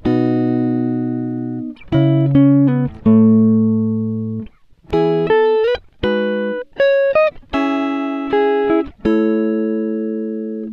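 Background music: plucked-string notes and chords, each struck and left to ring and fade, a new one every second or two.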